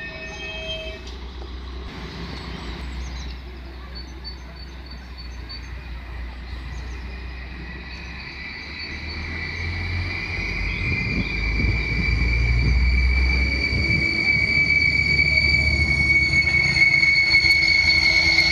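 Alstom Coradia LINT 41 diesel railcar pulling in alongside the platform: a low engine rumble and a high, steady squeal grow steadily louder through the second half.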